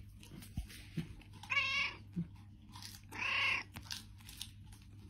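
Domestic cat meowing twice, about a second and a half in and again about three seconds in, over a faint steady hum.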